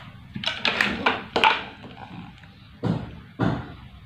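Rummaging off to one side while searching for a length of cable: a few short knocks and rustles as things are moved about, in two clusters, about half a second in and again about three seconds in.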